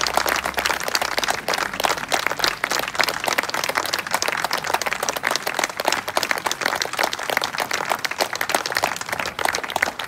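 Audience applauding with steady, dense clapping, as the concert band's final held note cuts off in the first second.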